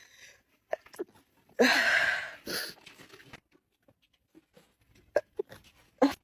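A woman sneezes once: a loud, breathy burst about one and a half seconds in, followed by a short second burst. A few brief faint sounds near the end.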